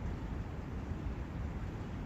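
Forest ambience of wind and a brook: a steady rushing noise, strongest in the low end.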